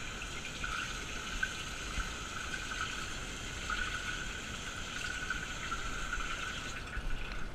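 Kitchen faucet running steadily into a stainless steel sink, water splashing in the basin; it shuts off near the end.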